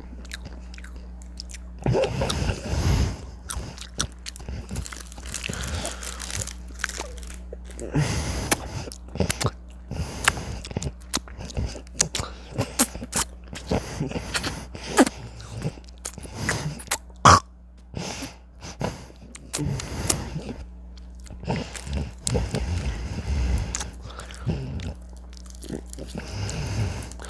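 Close-miked chewing and crunching of chips: many irregular crisp crunches and mouth sounds, over a faint steady electrical hum.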